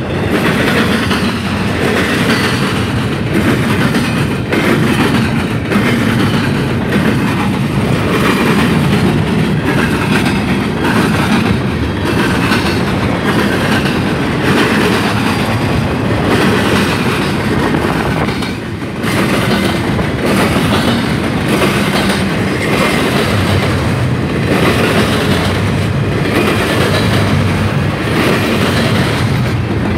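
Double-stack container train of articulated well cars rolling past at close range: a steady heavy rumble with a regular clickety-clack of wheels over rail joints.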